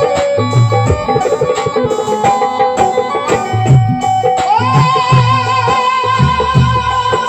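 Instrumental interlude of a Hindi devotional song: tabla rhythm under a melody line. About halfway through, a long note slides up and is held with vibrato.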